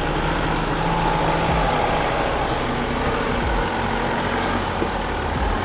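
Mazda BT-50 four-wheel drive's engine running steadily under load, pulling the ute up a very steep dirt track.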